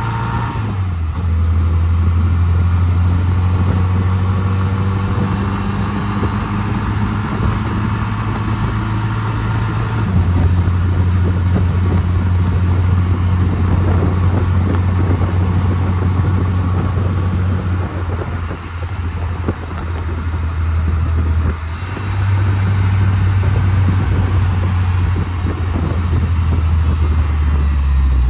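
Triumph Spitfire's four-cylinder engine running on a road test of its freshly rebuilt gearbox and overdrive. The engine note is steady but steps down and back up a few times, about a second in, around ten seconds, and again between about 18 and 22 seconds.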